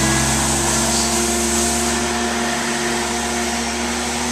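Propane forklift engine running steadily as the truck drives past, its hum easing slightly as it moves off.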